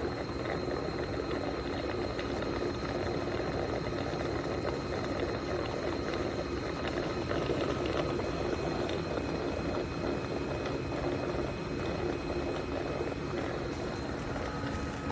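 Yeedi M12 PRO+ robot vacuum and mop running: a steady motor and suction whir with a faint high whine, holding level throughout.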